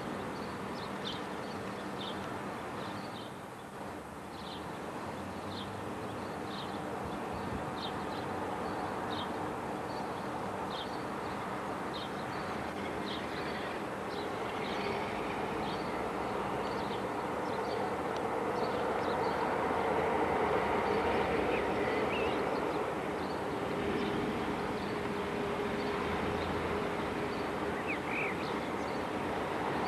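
Class 47 diesel locomotive's Sulzer V12 engine running as it draws slowly closer, a steady drone that grows louder in the second half. A bird chirps over it at an even pace.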